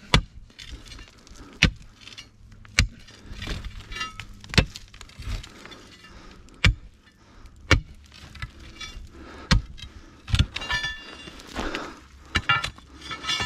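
A long steel digging bar striking rock and stony soil, about nine heavy blows spread unevenly, some with a short metallic ring, with loose stones rattling and scraping between strikes.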